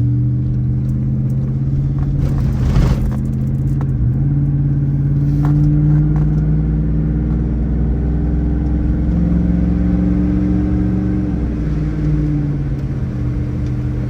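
Truck engine running while driving, its pitch drifting up and down gently with speed, with a short sharp noise about three seconds in. The engine is running smoothly, 'purring like a kitten'.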